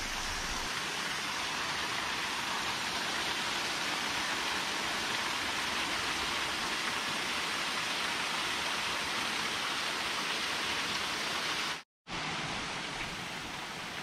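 Small waterfall pouring over rocks, a steady rush of water. It cuts out abruptly for a moment about two seconds before the end and comes back slightly quieter.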